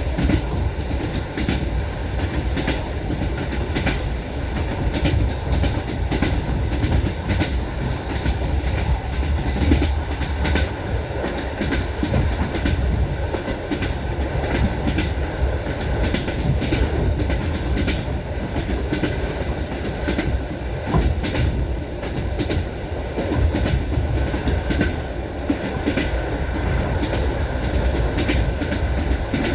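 Train wheels clacking over rail joints: a steady low rumble with many sharp, repeated clacks.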